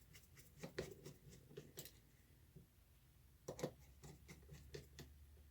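Faint, irregular light clicks and taps of small parts and tools being handled on a workbench, in two short clusters: one about half a second in and one about three and a half seconds in.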